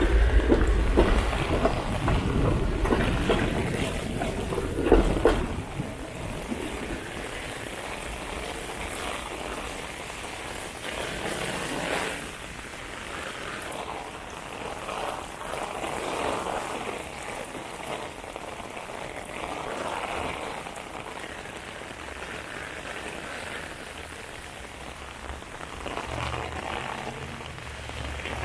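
Heavy rain falling on pavement and an umbrella, a steady hiss with slow swells. A heavy vehicle passes in the first five seconds or so, the loudest part, with a low rumble that then fades.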